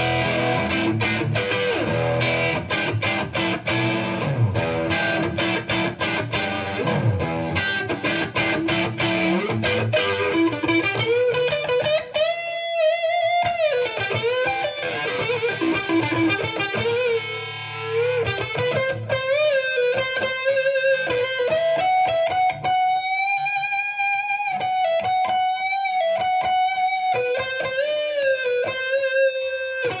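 Overdriven electric guitar: a Gibson Les Paul R9 reissue played through a cranked, jumped 1972 Marshall Model 1986 50-watt Bass head into a Marshall 4x12 cabinet. It plays chord riffs for about the first ten seconds, then a single-note lead with string bends and vibrato.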